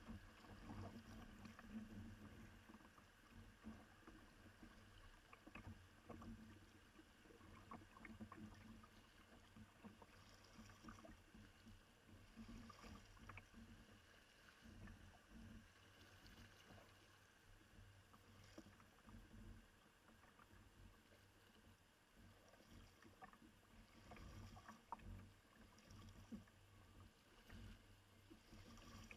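Faint sounds of a kayak being paddled on a river: soft recurring paddle strokes and water splashes every second or two, with scattered light ticks and a low rumble underneath.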